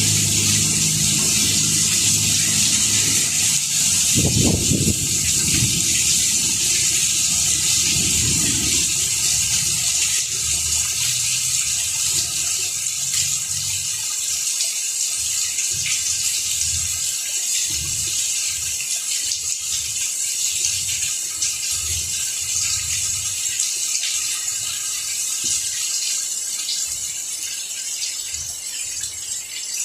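Steady rain falling on plant leaves, a dense hiss, with a low rumble through the first several seconds and scattered low thuds after that.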